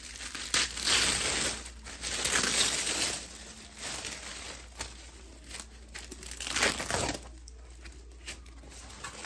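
Thin plastic mailer bag and foam wrapping crinkling and rustling in irregular bursts as the package is opened and the wrapped item pulled out, loudest in the first three seconds and again about seven seconds in.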